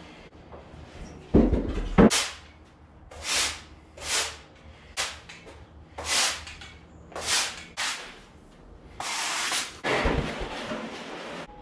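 A push broom sweeping a rubber gym floor in a series of short scraping strokes, about one a second. A heavy wooden plyo box thuds down on the rubber mats twice about a second and a half in, and once more near the end.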